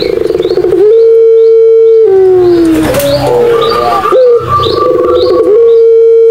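Puter pelung doves cooing. The calls are long drawn-out notes, each held steady and then sliding down in pitch, with a quavering trill at the start.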